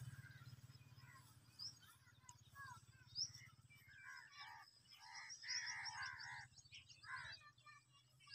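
Faint bird calls outdoors: short chirping notes, sparse at first and coming thickly about halfway through, over a faint low hum.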